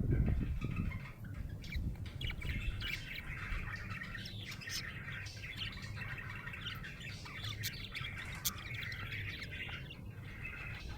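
Budgerigar chirping and chattering in an unbroken run of short, quick notes, with a few sharp clicks among them. There is a low rumble in the first second.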